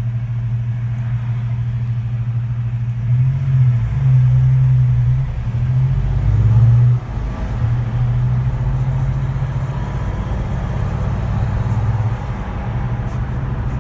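Car engine running with a deep, steady note, revved up briefly several times between about three and seven seconds in, then settling back to a steady run.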